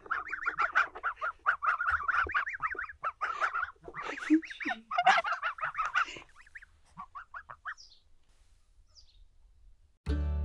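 A small flock of domestic geese calling in a rapid run of short calls, thinning out to a few scattered calls and stopping about eight seconds in. Acoustic guitar music starts near the end.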